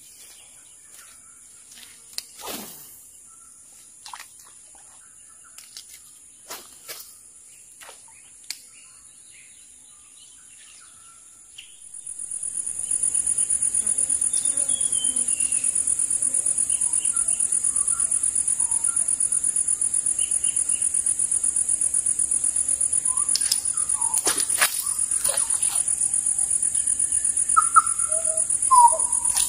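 A high-pitched insect chorus drones steadily. It is faint at first and turns loud about twelve seconds in, with scattered bird chirps under it. In the quieter first part there are scattered light clicks and rustles.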